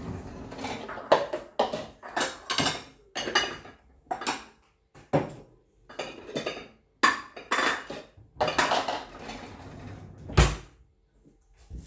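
Kitchen clatter of dishes and a knife being handled: a string of irregular clinks, scrapes and knocks, with one heavier knock about ten seconds in.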